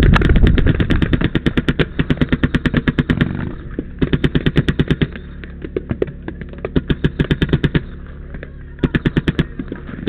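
Empire Invert Mini paintball marker firing rapid strings of shots, about eight a second in its Millennium firing mode, in several bursts of about a second each. A heavy low rumble of running and wind on the microphone lies under the shots in the first few seconds.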